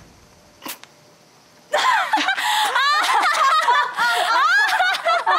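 Two young women laughing loudly together in an exaggerated, theatrical villains' laugh, starting about two seconds in. Before it the sound is quiet apart from one short click.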